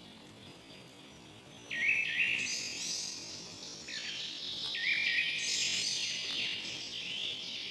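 Forest songbirds chirping and singing in overlapping, quickly repeated phrases that start suddenly about two seconds in, over a faint high hiss.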